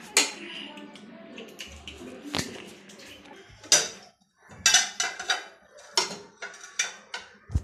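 Metal spoon clinking and scraping against a ceramic plate in a string of separate strikes while spreading mayonnaise over a burger bun.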